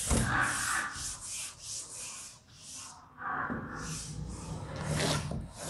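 Blackboard duster scrubbing back and forth across a chalkboard to erase chalk: quick rubbing strokes about three a second, with a short pause about three seconds in before the strokes resume.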